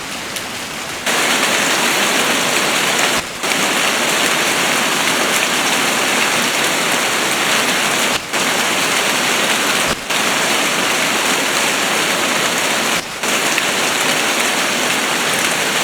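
Heavy downpour of rain, a dense steady hiss of rain hitting the ground, briefly dipping in level a few times.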